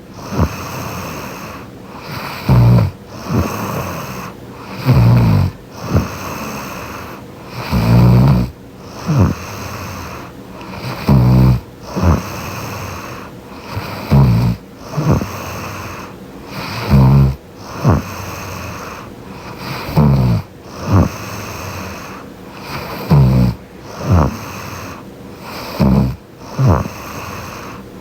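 A young woman snoring in her sleep, close to the microphone: a loud, low buzzing snore about every three seconds, each followed by a softer breath out, in a steady rhythm of about nine snores.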